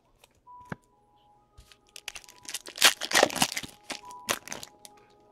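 A foil trading-card pack torn open and crinkling in the hands, in a burst of about two seconds halfway through, over faint background music.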